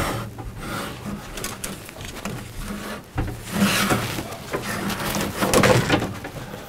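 Yellow Romex (non-metallic sheathed) cable being pulled by gloved hands through a drop ceiling: irregular scraping and rustling as the wire drags over the metal ceiling grid and joists, loudest a little past the middle and again near the end.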